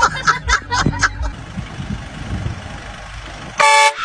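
A short, loud vehicle horn blast near the end, one flat steady tone lasting about a third of a second. Before it comes a quick run of short sharp bursts, then a steady hiss.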